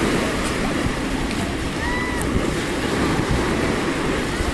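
Mediterranean surf washing steadily onto the beach, with wind buffeting the microphone.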